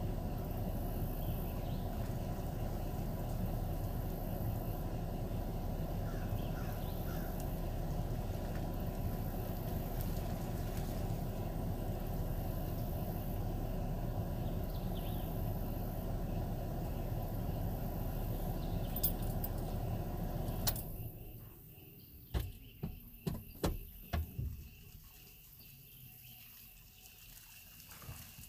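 Steady low rumbling outdoor noise. About twenty seconds in it drops away suddenly, followed by several sharp knocks over the next few seconds.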